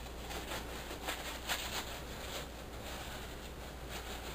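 Soft, irregular rustling of disposable gloves being pulled onto the hands, over a low steady hum.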